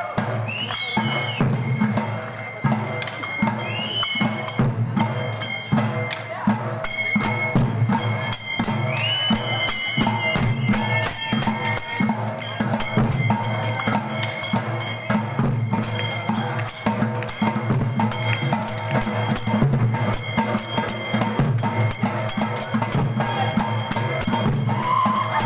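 Dollu Kunitha ensemble of large dollu barrel drums beaten with sticks, playing a dense, driving rhythm together.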